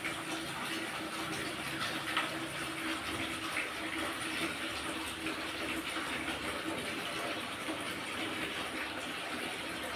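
Tap water running steadily into a sink, a continuous splashing stream, with a light knock about two seconds in.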